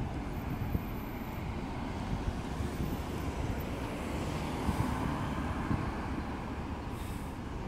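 Road traffic passing close by: a steady rumble of car tyres and engines, swelling slightly midway, with a low buffeting from wind on the microphone.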